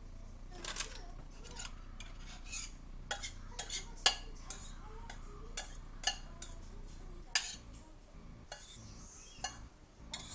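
A metal utensil stirring and clinking against a stainless steel pot of noodles, with irregular sharp metal-on-metal clinks, several a second at times, thinning out after about seven seconds.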